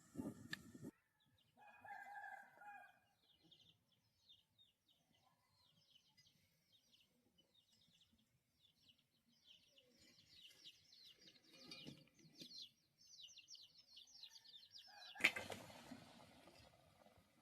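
Faint village-yard sounds: a chicken calls once, briefly, early on, then small birds twitter in quick high chirps for several seconds. A single sharp knock comes about fifteen seconds in.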